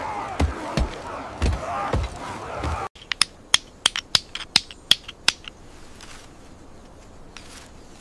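Heavy irregular thuds of stone being pounded, with low voices behind them. The sound cuts off suddenly about three seconds in, giving way to a quick run of sharp clicks and taps from hand tools on small carved objects, then a faint hiss.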